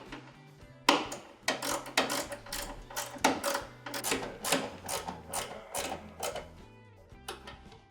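Background music: low held notes that change in steps under a quick, uneven run of sharp percussive beats.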